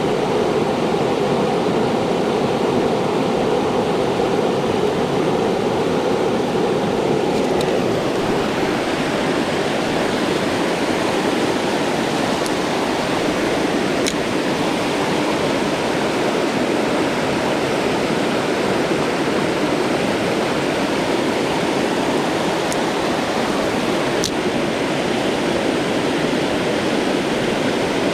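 Mountain trout creek rushing over rocks, a steady loud rush of water, with a few faint ticks in the second half.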